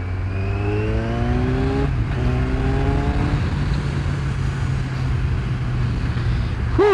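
Kawasaki Z1000's inline-four engine accelerating hard. The engine note rises through one gear, drops briefly at a gear change about two seconds in, rises again through the next gear, then holds steady at cruising speed. A short, sharp sound comes right at the end.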